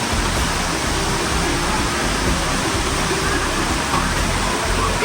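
Steady rush of a waterfall pouring close by, with faint voices under the water noise.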